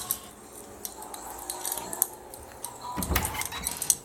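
Wood bonfire crackling, with irregular sharp pops and snaps. It grows denser and louder, with a low rumble, about three seconds in.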